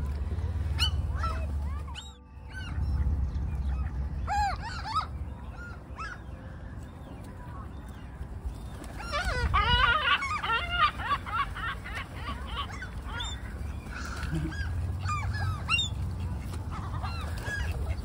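A flock of gulls calling: short, arched squawks from several birds, rising to a dense flurry about halfway through, over a steady low rumble.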